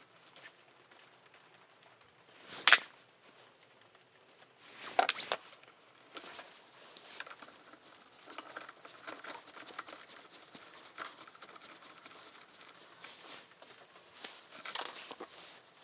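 Lawnmower engine parts being handled and fitted by hand: scattered light clicks and scrapes of plastic and metal, with three louder knocks about three seconds, five seconds and fifteen seconds in.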